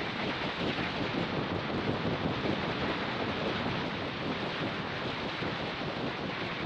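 Steady rush of wind buffeting the microphone of an action camera strapped to a red parrot's back as the bird flies.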